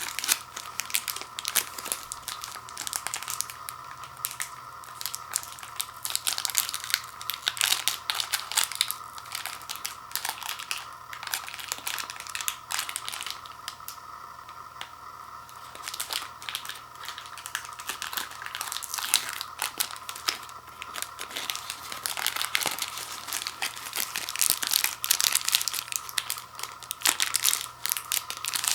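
Plastic wrapper of a Reese's Fast Break king size candy bar being crinkled and torn open, in irregular bursts of rustling, over a faint steady hum.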